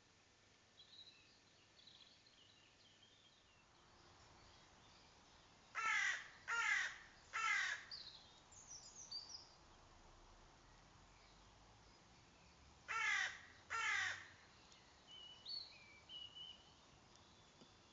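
Crow cawing: three harsh caws in quick succession about six seconds in, then two more about seven seconds later. Faint high chirps from small birds come between the caws.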